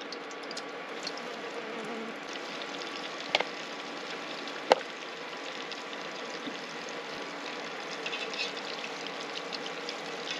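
Yabby patties shallow-frying in a pot of oil: a steady bubbling sizzle, with two sharp clicks about a third of the way through and just before halfway.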